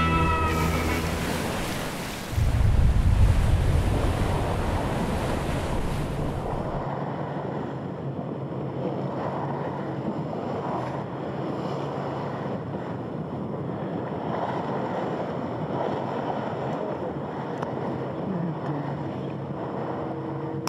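Wind and sea water rushing past a maxi 72 racing yacht under sail, with wind buffeting the microphone loudly for a few seconds early on, then settling to a steady rush of water and wind.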